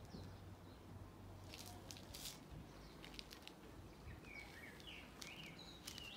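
Faint footsteps crunching on a dry garden path and cut grass, a few scattered steps, with a small bird's short chirps near the end.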